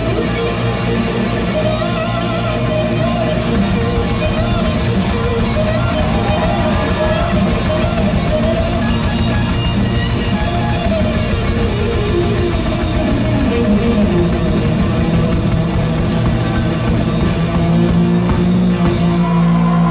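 Rock band playing live, electric guitar to the fore over bass and drums. Near the end a low note is held steady as the song closes.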